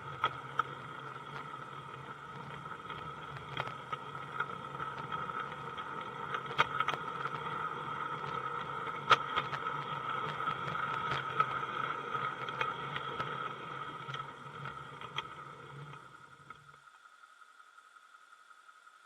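Small 16mm-scale garden railway train running, heard from a wagon riding behind the locomotive: a steady mechanical hum with irregular sharp clicks of the wheels on the track. The running stops suddenly about three seconds before the end.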